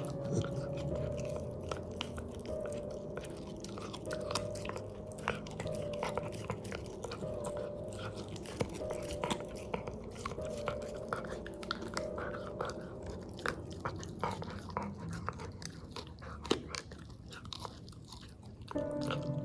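A corgi chewing a dog treat, biting down with many irregular sharp crunches.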